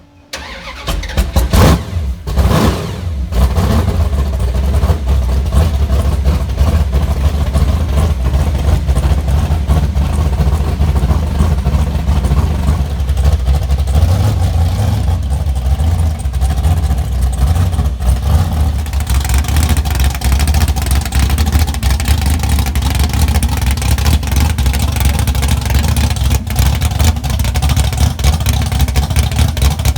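A car engine comes in suddenly and runs loudly, with a few revs in the first three seconds, then a steady deep drone, as when driving under way.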